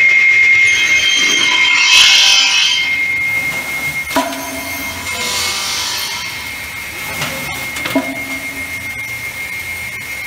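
Double-end pallet-board trimming saw running with a steady high whine from its circular saw blades, which cut through boards with two loud rasping passes in the first three seconds. The machine then runs on more quietly, with a few sharp knocks about four and eight seconds in.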